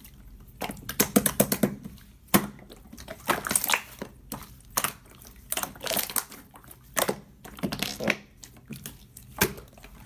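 Translucent slime being stretched, pressed and folded by hand, giving irregular clusters of sticky crackling clicks.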